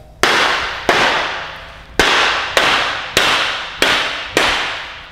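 Rubber mallet knocking a metal corner piece into the end of an aluminium gangway frame: seven sharp blows, mostly about half a second apart, each followed by a ringing decay.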